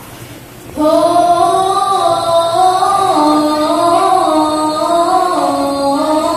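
Female singing of a slow, ornamented Islamic devotional hadroh song starts suddenly about a second in, with long held notes that glide between pitches, unaccompanied by the frame drums.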